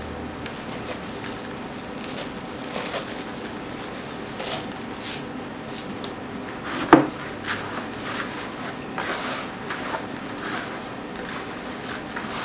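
Gloved hand mixing wet fish chum with breadcrumbs and oatmeal in a plastic bucket: wet squishing and scraping over a steady hum, with one sharp knock about seven seconds in.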